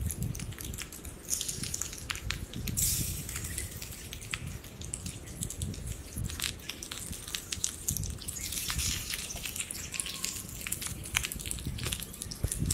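Cooking in a pan: food sizzling, with irregular clicks and scrapes of a spatula as it is stirred.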